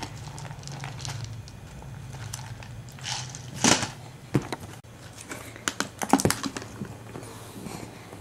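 Scattered soft clicks, taps and rustles from a plastic snack canister being handled, with the busiest stretches about three seconds in and again around six seconds, over a steady low hum.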